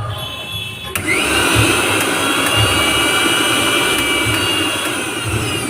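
Bajaj mixer grinder's motor switched on about a second in, speeding up with a rising whine and then running steadily at full speed: a test run after a new rotary switch has been fitted and wired. Background music with a regular beat is heard under and before it.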